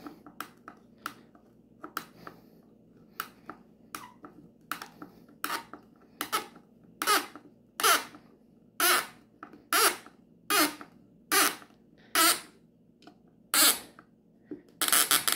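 A screw squeaking as it is turned by hand with a screwdriver into a metal mounting bracket and wooden plaque. There is one short squeak per twist: faint clicks at first, then louder, longer squeaks about once a second from about halfway.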